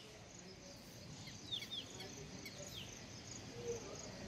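Faint field ambience: insects chirping in a steady, pulsing high trill, with a few quick, falling bird chirps about one and a half and two and a half seconds in.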